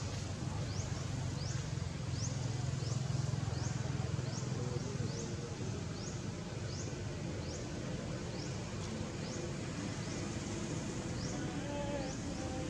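Jungle ambience: a high, rising chirp repeats about every three-quarters of a second over a steady low rumble, with a few faint short calls about a third of the way in and near the end.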